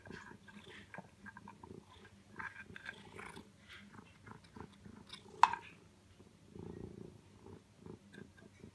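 A cat eating soft food chunks from a plastic bowl: irregular small wet smacks and chewing clicks. One much louder sharp click comes about five and a half seconds in.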